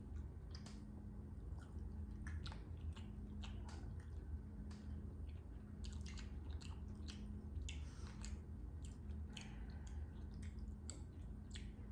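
Chewing and biting into fried chicken, with irregular small wet and crunchy clicks, over a faint steady low hum.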